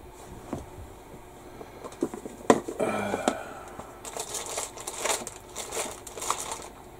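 Rummaging through stored packaging: several sharp knocks and clicks of items being moved in the first half, then steady crinkling of packaging from about the middle on.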